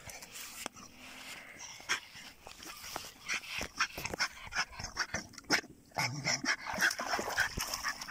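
A German Jagdterrier panting, with a brief whine about three-quarters of the way through, and water splashing as it wades in shallow water and climbs out onto the bank.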